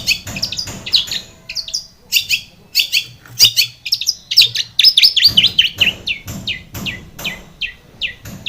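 Long-tailed shrike (cendet) singing vigorously: a fast stream of short, harsh chirps and quick downward-sweeping notes, several a second, densest about five seconds in.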